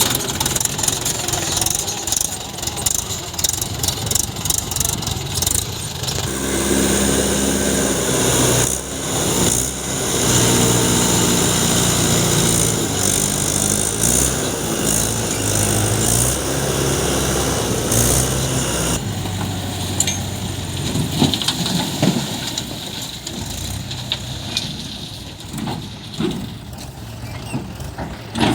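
Heavy machinery diesel engine running under work, its note shifting up and down through the middle of the stretch, then dropping to a quieter, rougher running with a few knocks toward the end.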